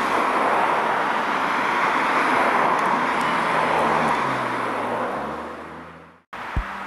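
Road traffic: cars going by with a steady rush of tyre and engine noise that fades out near the end. A single short knock follows just after.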